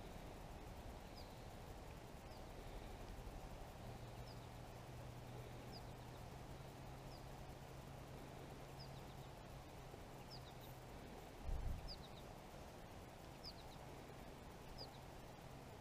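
A bird repeats a faint, short, high call about every second and a half, some calls doubled. A faint low hum runs through the middle, and a dull low thump comes about two-thirds of the way in.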